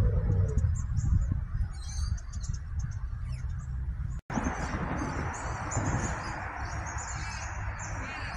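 Birds chirping over a steady low rumble, with a brief dropout about four seconds in.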